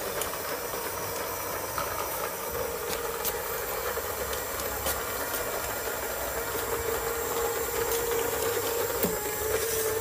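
Small cordless robot vacuum running: a steady whirring hiss with a faint hum, and a few light clicks and rattles as it moves.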